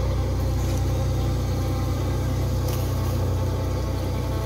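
A steady low mechanical drone, like an engine running at an even idle.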